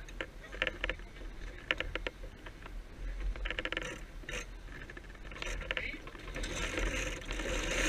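Sailboat sheet winches clicking as their ratchet pawls turn while the sheets are worked during a tack, in short runs of rapid clicks. From about six and a half seconds in, a rush of wind and water grows louder.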